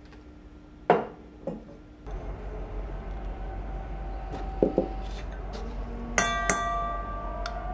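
A sharp knock about a second in, then a metal utensil stirring flour in a stainless steel mixing bowl, clinking against its side. A harder strike near the end sets the bowl ringing for a moment.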